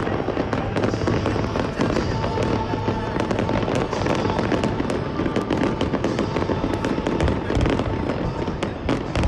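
Aerial fireworks bursting and crackling in a dense, continuous barrage, with music playing alongside.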